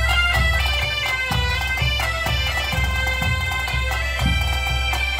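A band of Asturian bagpipes (gaitas) plays a melody over a steady drone, with side drums and a bass drum beating about twice a second.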